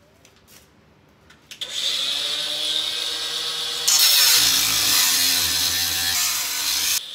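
Angle grinder spinning up about a second and a half in, then its disc cutting through the sheet-metal wall panel of a truck's habitat box. It gets louder about four seconds in as the disc bites, the motor's pitch drops under the load, and it stops abruptly near the end.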